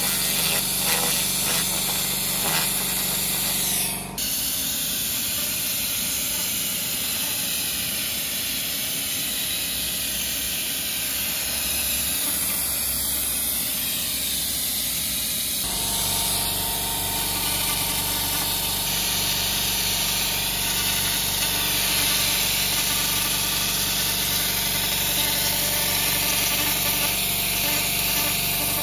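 LightWave 300TH handheld laser cleaner ablating heat tint and scale along welds on sheet metal: a loud, steady hiss. Its tone changes abruptly about four seconds in and again near the middle.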